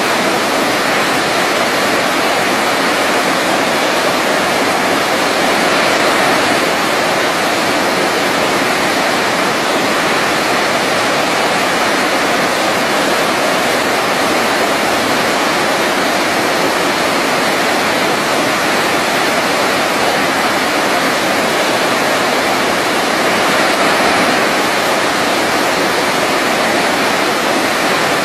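Waterfall, water falling in a steady, unbroken rush with no changes or separate events.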